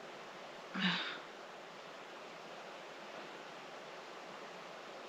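Steady, soft rushing noise, with one brief low vocal sound about a second in.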